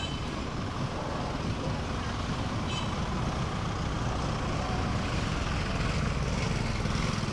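Busy street traffic: vehicle engines running with a steady low hum amid general street noise, with a brief high-pitched beep about three seconds in.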